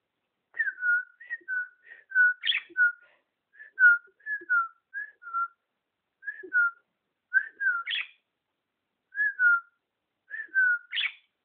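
Red-fronted parakeet giving a run of short whistled notes, mostly falling slurs in pairs, with a few quick upward-sweeping squeaks among them.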